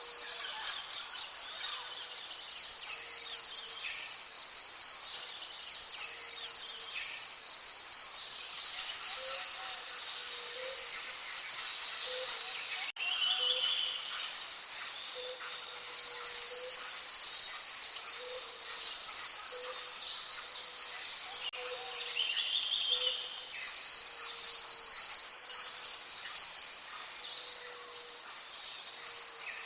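Outdoor nature ambience: a steady, high-pitched insect chorus, with short low notes repeating from about nine seconds in and two brief bird calls, one about thirteen seconds in and one about twenty-two seconds in.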